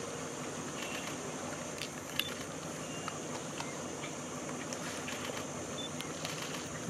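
Steady outdoor background noise, with a few faint clicks scattered through it.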